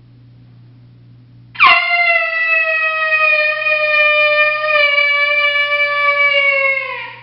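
Mouth-blown coyote howler call from the MFK Game Calls howler pack sounding one long howl, loud. It breaks in sharply about a second and a half in, holds with its pitch sagging slowly, and drops away at the end.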